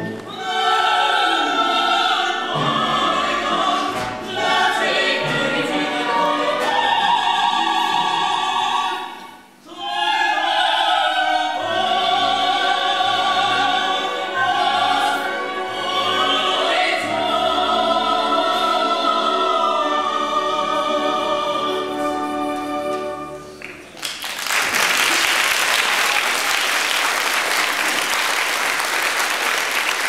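Ensemble of voices singing with orchestral accompaniment, with a brief pause about a third of the way in. The song ends near the end and gives way to audience applause.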